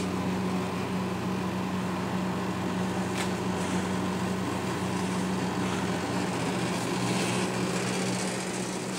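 Freezer running with a steady hum, one low tone with a few fainter tones above it. A light click about three seconds in.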